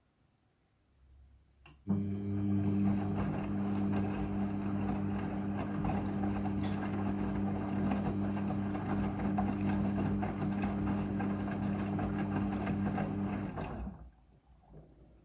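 Midea front-loading washing machine during its rinse cycle: a low steady electric hum with water rushing. It switches on suddenly about two seconds in and cuts off shortly before the end.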